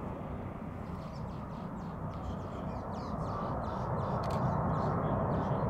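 South African Airways Airbus A330-300 with Rolls-Royce Trent 700 engines on final approach, a low steady jet rumble that grows louder about three seconds in as the airliner nears. Short, harsh bird calls sound repeatedly over it.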